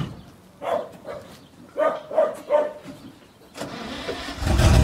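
A diesel truck engine is cranked about three and a half seconds in, catches, and settles into a loud, low, steady run near the end. Before that a dog barks a few short times.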